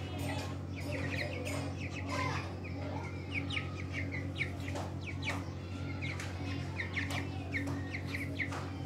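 A group of young chickens peeping: many short, high chirps that fall in pitch, several a second, over a steady low hum.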